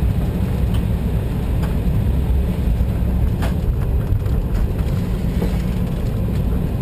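Cabin noise of an Embraer 190 airliner rolling out on the runway after touchdown: a steady low rumble from the engines and the landing gear on the pavement, with a few faint knocks.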